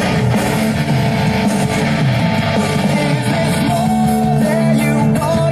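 Rock music with electric guitar and singing playing through a Panasonic SD-85 receiver's speakers, loud and without a break.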